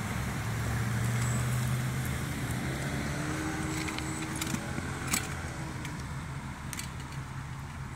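Steady low engine hum of a motor vehicle, easing slightly after a couple of seconds, with a few sharp clicks in the middle.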